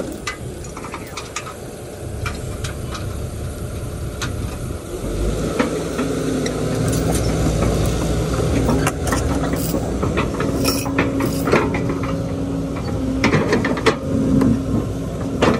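Kobelco hydraulic excavator's diesel engine running, picking up speed about five seconds in and holding at a higher steady pitch as the boom swings and lowers the bucket. Scattered metallic clicks and knocks throughout.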